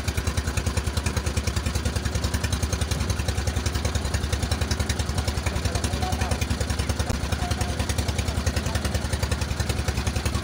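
Small boat engine running steadily, with a fast, even chugging beat.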